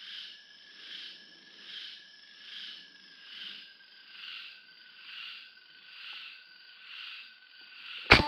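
A night chorus of calling animals that swells and fades a little under once a second, then near the end a single sharp rifle shot, by far the loudest sound.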